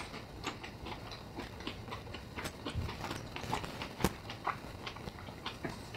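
Mouth sounds of people eating a soft-bunned dumpling: irregular soft clicks and smacks of chewing, with one sharper click about four seconds in.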